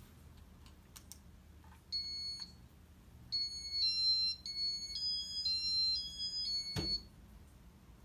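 Electronic beep tones from a Casablanca ceiling fan's control board. One high beep sounds about two seconds in, then a short tune of about eight high beeps stepping up and down in pitch, ending with a sharp click.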